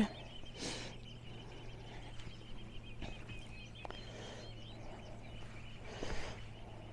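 A small songbird twittering in rapid, high, repeated chirps, with two soft scuffs of footsteps on the stony path, about a second in and near the end.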